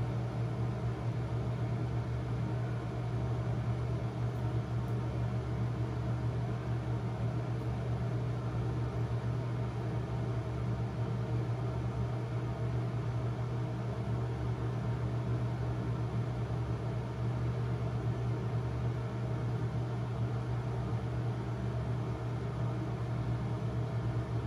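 Steady low hum with an even hiss over it, like a fan running, unchanging throughout.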